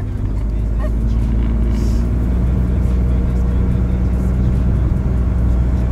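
Steady low drone of a running motor vehicle, with a hum of several low tones; a further low tone joins about two seconds in.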